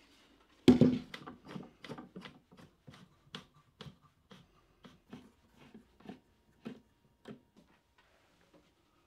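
A plywood box set down with a loud wooden thump on a workbench, followed by a run of lighter wooden clicks and knocks, about three or four a second, fading out, as wooden cauls and bar clamps are fitted around it.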